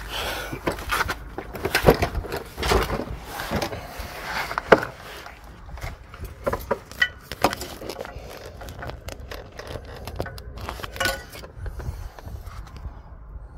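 Handling noise from a handheld phone being moved about: irregular rustling, scraping and knocking, with a sharper knock about two seconds in and another about four and a half seconds in.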